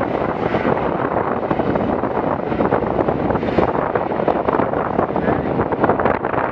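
Wind buffeting the microphone, mixed with choppy waves and spray rushing past a rescue boat under way. Steady and loud, with small splashes throughout and no clear engine tone.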